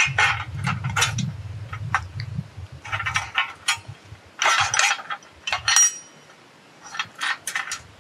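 Steel plates of a woven-wire strainer board clinking and rattling against each other and the wire netting as the clamp plate is set and shifted into place, in several short bursts of clinks.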